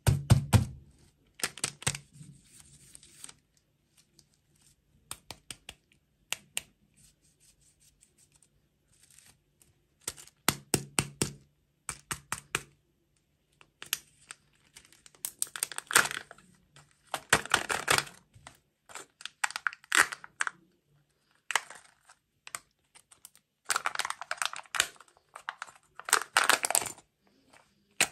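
Hands tearing and crinkling the plastic wrapper of a Kinder Joy candy egg, then peeling the sealed foil lid off its plastic capsule, in bursts of crackling with small clicks between them. There is a thump at the very start.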